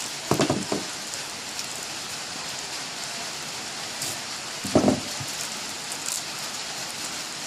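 Steady hiss like falling rain, with two brief handling clatters, one about half a second in and one about five seconds in.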